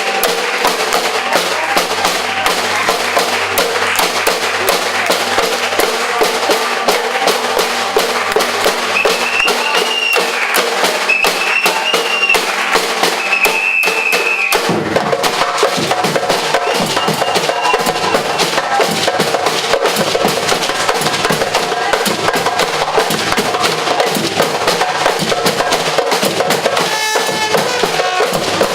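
A batucada-style percussion group playing a fast, dense drum rhythm. Several short whistle calls sound a third of the way in, and just before halfway the deep bass drums come in strongly.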